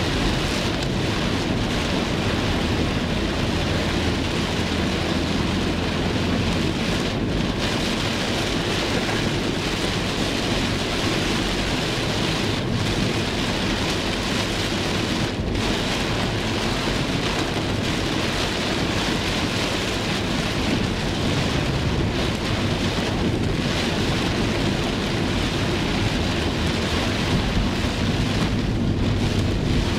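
Heavy rain drumming on a car's roof and windshield, heard from inside the car as a steady, dense hiss.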